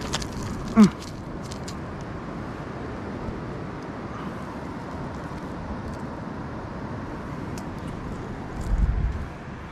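Steady wash of surf and wind on a beach, with small sharp clicks in the first two seconds as the lure and hook are worked out of a mangrove snapper's mouth by hand. A brief falling voice-like sound about a second in, and a low rumble near the end.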